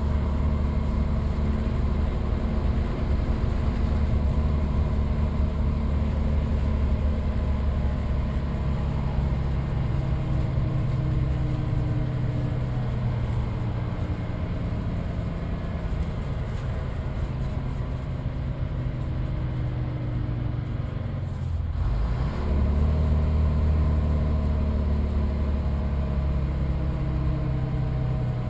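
BMMO D9 double-deck bus's diesel engine running under way, heard from inside the bus, with a steady low engine note and road noise. About three quarters of the way through, the engine note drops away briefly, then comes back louder.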